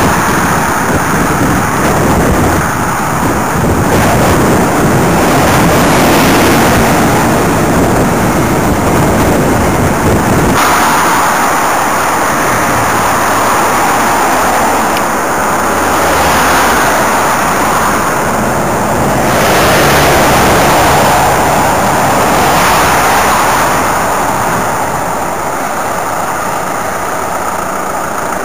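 Steady wind and road noise rushing over the microphone of a moving camera, with traffic passing and the noise swelling and easing as vehicles go by. About ten seconds in, the low rumble drops away abruptly and the hiss shifts higher.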